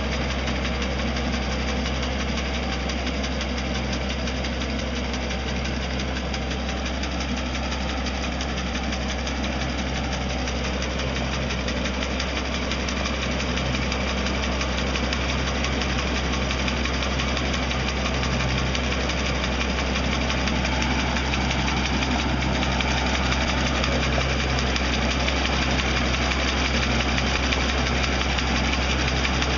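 Tractor engine running steadily, driving a boom-mounted hydraulic brush trimmer whose cutting head chops grass and brush.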